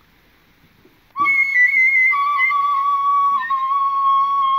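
Tin whistle (penny whistle) blown in one long high note that wavers slightly and dips a little in pitch partway through. It starts about a second in.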